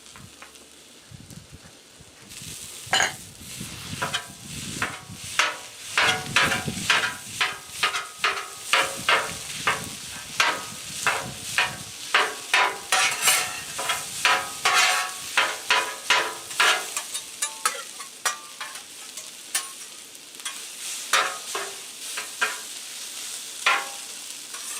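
Fried rice with onion, carrot and garlic sizzling on a steel flat-top griddle, while metal spatulas scrape and chop it against the griddle surface. The strokes start about three seconds in and come two or three a second.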